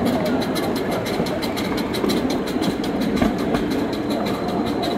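Coal-fired miniature steam train running along its track, heard from one of its passenger cars: a steady rumble with a fast, even clatter.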